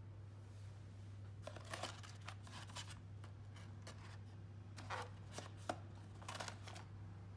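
Small cardboard box being handled and its flip lid opened: dry scraping and rubbing of card in two bouts, with one sharp tap partway through the second, over a steady low hum.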